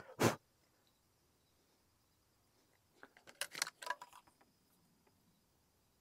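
Handling of a percussion rifle musket as it is readied to fire. There is one sharp knock about a quarter second in, then a quick run of light metallic clicks from the rifle's lock and fittings between about three and four and a half seconds in.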